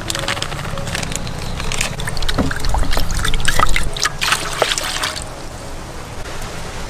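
A milky flour batter poured from a bowl into a metal pan, splashing and trickling, loudest about halfway through and easing off towards the end.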